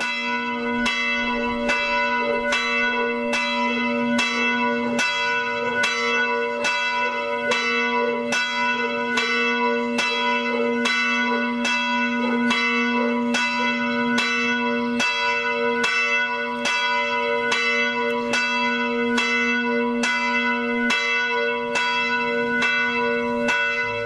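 Church bell tolling steadily, just over one stroke a second, each stroke ringing on into the next. It is a memorial tolling for the Trianon commemoration.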